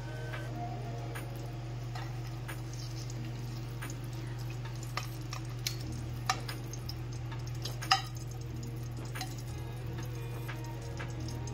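Metal kitchen tongs clinking against a ceramic baking dish as roasted carrots are set into it: a few sharp clinks, the loudest about eight seconds in, over a steady low hum.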